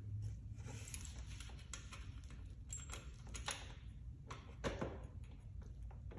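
Irregular light metallic clicks and taps from hands threading and turning the throttle body's mounting bolts by hand, with a few sharper knocks.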